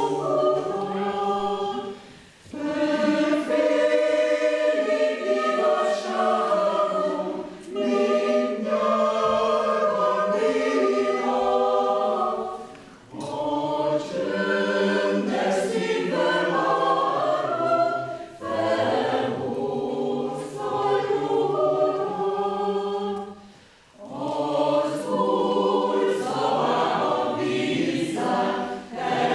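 Mixed choir of men's and women's voices singing, in phrases of about five seconds with short pauses for breath between them.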